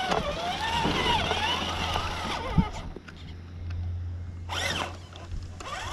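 Electric motor and gears of an RC rock crawler whining as it tows a trailer over rough ground, the pitch rising and falling with the throttle for the first couple of seconds, then fading as the truck moves away. A short rush of noise comes near the end.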